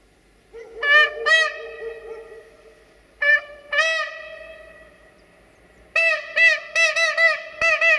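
Siemens Desiro diesel multiple unit's horn sounding as the train approaches: two short toots about a second in, two more around three to four seconds, then a fast run of about seven short toots from about six seconds on.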